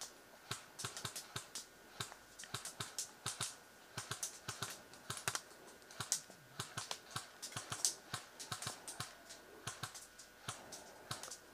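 A run of sharp, irregular clicks and snaps, several a second and uneven in loudness, over a faint steady background.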